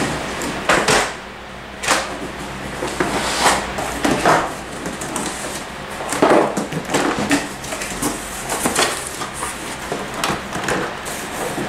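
Rummaging in a cardboard box and handling cables: irregular rustling, scraping and light knocks, several to a second at times.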